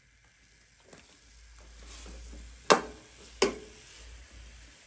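Raw chicken pieces beginning to sizzle in an aluminium pan on a gas stove, the sizzle building after about a second. A metal ladle knocks against the pan twice, each knock ringing briefly.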